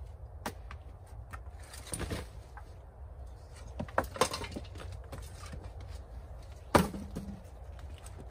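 Blows of a hand tool striking a clay-daubed timber cabin wall, knocking loose clay and wood: a crumbling clatter around two seconds in, two hard strikes around four seconds, and the loudest blow near seven seconds. A steady low rumble lies underneath.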